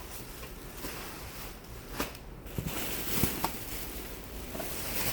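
Rustling of a dress being handled, with a few light clicks.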